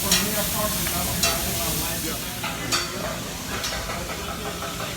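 Stir-fry sizzling on a hot grill, with several sharp clacks of metal cooking utensils against the cooking surface.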